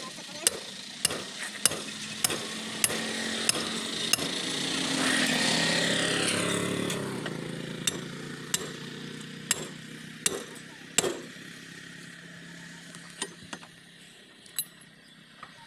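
Metal hammer blows on a tractor's rear wheel rim during a tyre puncture repair, a strike about every 0.6 s at first, then slower and more irregular. Midway a vehicle passes, swelling and falling away, its noise dipping in pitch as it goes.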